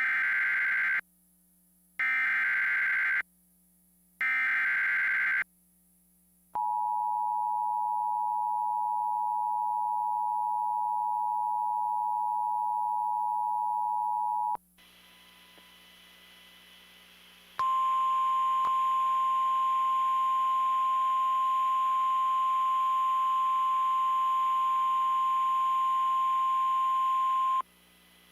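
Emergency Alert System activation: three short bursts of screeching SAME data header, then the two-tone EAS attention signal held steady for about eight seconds. After a brief hiss, the single steady NOAA Weather Radio alert tone sounds over radio static for about ten seconds, announcing a severe thunderstorm warning.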